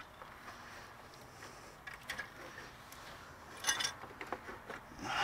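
Scattered light clicks and knocks of metal parts as an alternator is worked out of an engine bay, with a brief louder clatter about three and a half seconds in.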